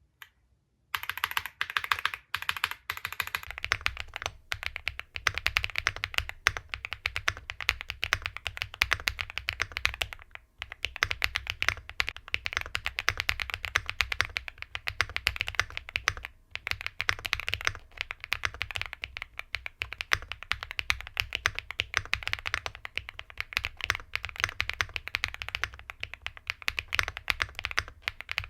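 Fast, continuous typing on a Rainy 75 hot-swappable mechanical keyboard: a dense run of key clacks starting about a second in, with short breaks near ten and sixteen seconds.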